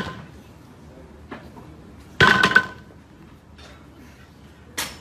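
Loaded barbell clanking against the floor, the metal plates ringing briefly, with a cluster of two or three clanks about two seconds in and a short sharp click near the end.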